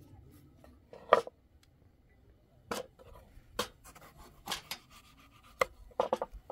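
A handful of sharp, irregular knocks and taps from food preparation: raw potato slices being laid into a steel pot, with a knife and a wooden cutting board in use.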